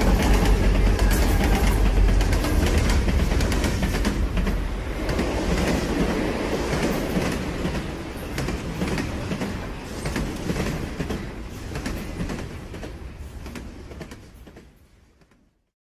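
A train running on its rails, a heavy rumble with wheels clattering over the rail joints, fading steadily and dying away to silence near the end.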